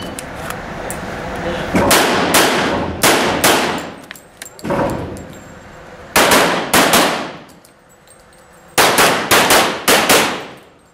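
Handgun shots fired in quick pairs and fast strings, about fifteen in four bursts with short pauses between. Each shot rings and echoes off the hard walls of an indoor range.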